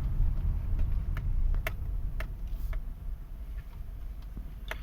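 A few separate sharp clicks inside a car's cabin over a low steady rumble.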